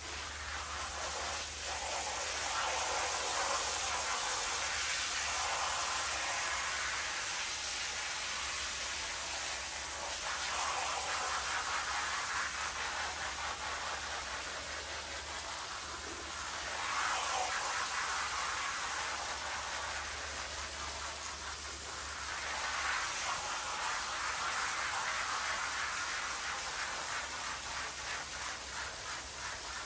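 Pressure-washer jet spraying water across a foam-covered rug, a steady hiss that swells and eases as the spray sweeps back and forth, with a low steady hum underneath.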